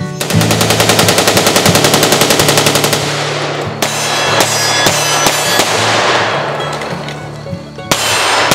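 A long, rapid burst of gunshots, several a second, for about three seconds, then single pistol shots fired about every half second, over background music.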